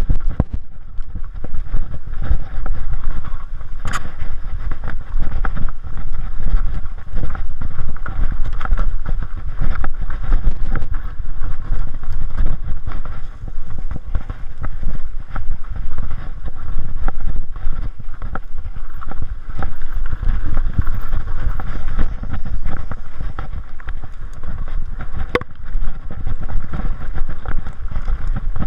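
Mountain bike ridden fast down a rough, rooty dirt trail: wind buffeting the on-board camera's microphone over a constant clatter of chain, frame and tyres on the ground, with a sharp knock about four seconds in and another near the end.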